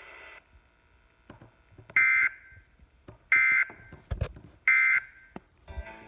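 Emergency Alert System end-of-message signal: three short bursts of warbling two-tone digital data, about a second apart, marking the end of the broadcast weather alert. Heard through a laptop's speaker, with a few faint clicks between the bursts.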